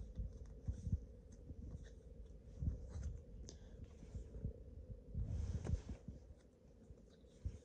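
Quiet handling of trading cards: faint rustling and small taps as a stack of cards is held and sorted in the hand, with a soft swish about two-thirds of the way through, over a faint steady hum.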